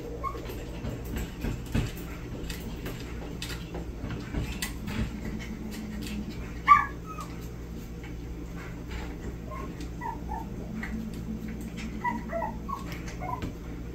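Small dog whining and yipping in short squeaks while it stands up in a wire crate, straining at a toy hanging out of reach; the loudest yelp comes about seven seconds in. Small clicks and rattles from the crate come through between the whines.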